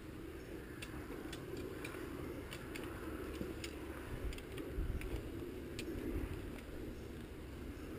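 Fishing tackle being handled: a run of light, irregularly spaced clicks from about a second in, stopping near the end, over a steady low background rumble.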